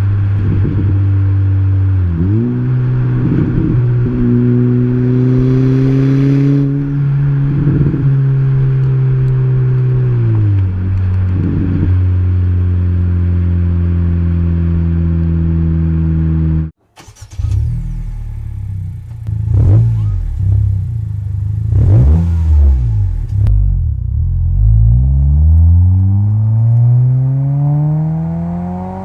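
A 2022–2024 Honda Civic Si / Acura Integra 1.5-litre turbo four-cylinder running through an aftermarket exhaust. It holds a steady rev with a few brief dips and blips. After an abrupt cut it is revved several times, ending in one long climbing rev.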